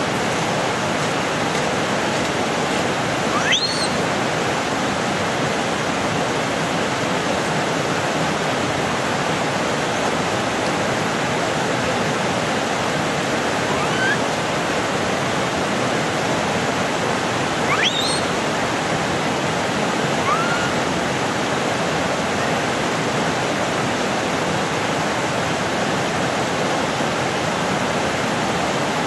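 Steady rush of flowing water, with four short rising high-pitched calls scattered through it.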